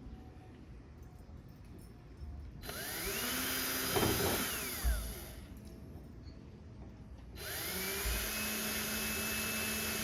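Power drill driving screws into plywood, run twice for about three seconds each: the motor whine rises to speed and holds, falling off as it stops the first time. A short knock comes just after the first run.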